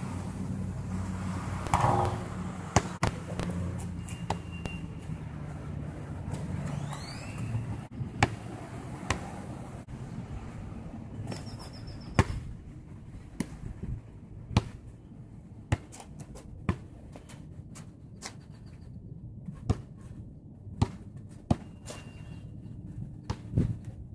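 A basketball bouncing on a hard outdoor court: single sharp thumps at irregular intervals, a second or several apart. A low steady hum underneath fades out about a third of the way in.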